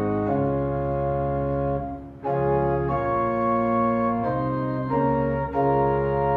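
Organ music: sustained chords that change every second or so, with a brief break in the sound about two seconds in.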